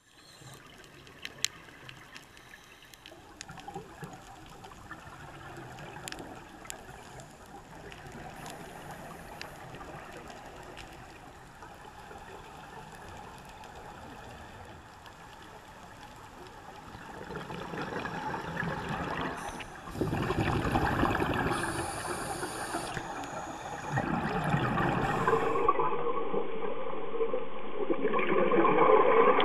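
Underwater sound picked up by a scuba diver's camera: a steady wash of water with a few sharp clicks, growing into louder gurgling rushes of exhaled regulator bubbles later on. The sound changes abruptly near the end.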